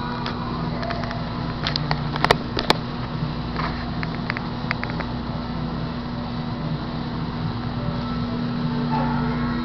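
Steady mechanical hum with a constant low tone and no speech. Short sharp clicks come in a cluster about two seconds in and again about four to five seconds in.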